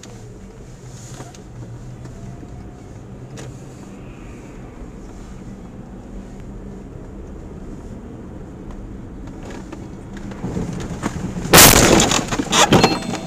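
Steady road and engine noise inside a moving car. Near the end, a sudden loud burst of impact noise with a few further knocks, lasting about a second and a half, as the car is struck beside a truck.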